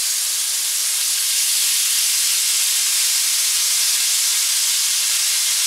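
Thick rib eye steak searing in hot avocado oil in a cast-iron skillet, a steady loud sizzle as Worcestershire sauce is poured over it.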